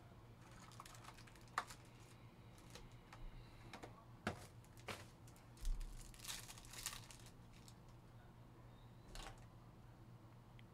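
Quiet handling of a trading-card hobby box and pack: scattered light clicks and taps of cardboard, then a short crinkling tear as the foil pack wrapper is ripped open about six seconds in. A few more soft clicks follow as the cards are handled.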